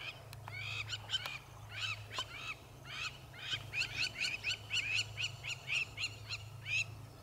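African wild dogs giving their high-pitched, bird-like twittering calls: short chirps, scattered at first, then coming quickly, about three or four a second, through the second half. A low steady hum runs underneath.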